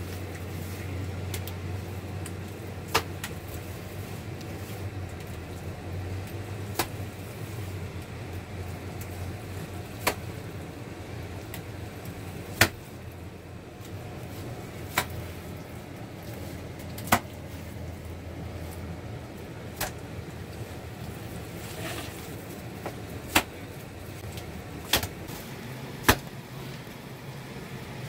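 About ten sharp single knocks, two to four seconds apart, over a steady low rumble.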